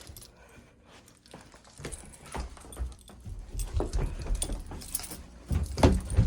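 Footsteps and handling knocks as a person moves from one spot to another, sparse and quiet at first, then heavier and louder thumps in the last couple of seconds.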